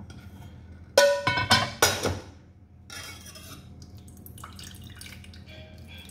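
Metal cookware being handled on the stove: a quick run of sharp, ringing clangs about a second in, then lighter clinks and scrapes, over a steady low hum.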